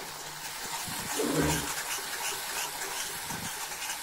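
Tomatoes and green chillies sizzling faintly in hot oil in a steel kadhai, with soft irregular crackling. A brief low sound comes about a second and a half in.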